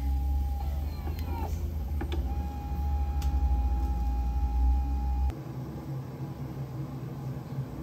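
An electric motor running with a low rumble and a steady whine that dips briefly about a second in, with a few sharp clicks and knocks, then cuts off suddenly about five seconds in, leaving a lower hum of room machinery.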